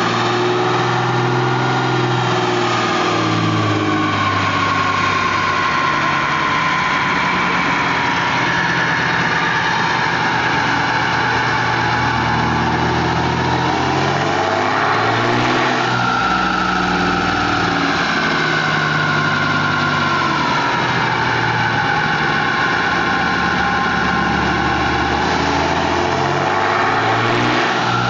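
Dodge Cummins turbo-diesel pickup running steadily on a chassis dyno, its engine speed drifting gently rather than being pulled hard. A whine slides slowly down and up in pitch over it.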